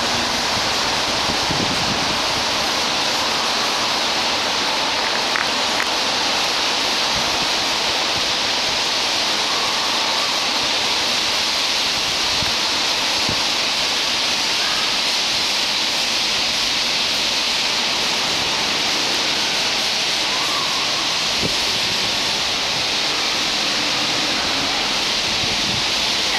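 A huge flock of white-cheeked starlings chattering at an urban roost, thousands of calls merging into one steady, dense wall of high-pitched noise.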